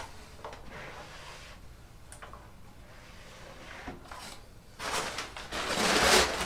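A plastic tub sliding in a reptile rack, scraping and rubbing, loudest near the end after a few faint clicks and knocks.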